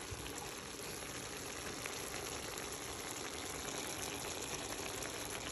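Shredded cabbage and onion sizzling in a hot pan as they stir-fry: a steady frying hiss with a few faint ticks.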